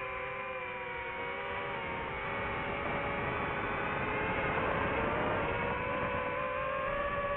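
DJI FPV drone's motors and propellers whining in flight: a stack of steady tones over a rushing noise, the pitch dipping slightly midway and rising a little near the end.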